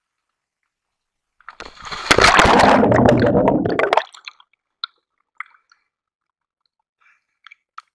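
A person plunging into the sea: a loud splash and rush of bubbles begins about a second and a half in and lasts about two and a half seconds as the camera goes under. It is followed by a few short drips and clicks as the camera comes back to the surface.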